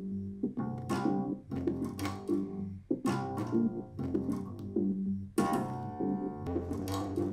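A song with plucked guitar and bass and sharp beats, played back through a small portable Bluetooth speaker and picked up by a microphone.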